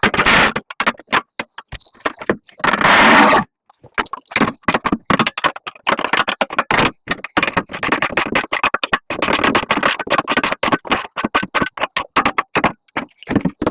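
Socket wrench ratcheting in quick clicks while tightening the 13 mm bolts of a steel fender flare, with a couple of longer, louder grinding bursts early on.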